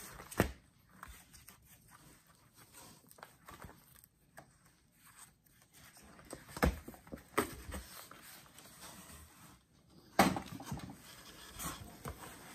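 Plastic card-sleeve pages in a ring binder being turned and handled: soft rustling with a few sharp knocks. About ten seconds in, louder handling as the binder is put down and a cardboard box is rummaged.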